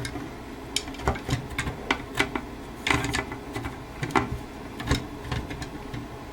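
A string of irregular sharp clicks and light knocks, like objects being handled and set down, over a low steady hum.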